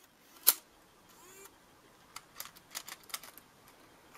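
Mini DV cassette being loaded into the open tape compartment of a JVC GR-D740EK camcorder: one sharp click about half a second in, then a string of small plastic-and-metal clicks and taps as the cassette is pushed into its holder.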